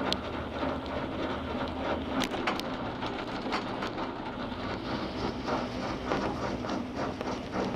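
Ride noise inside a Poma eight-seat detachable gondola cabin running along its haul rope: a steady rumble with scattered clicks and rattles.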